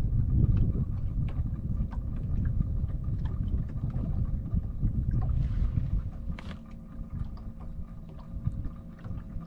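Wind rumbling on the microphone on an open boat, easing off about six seconds in, with light clicks and knocks and a faint steady hum underneath.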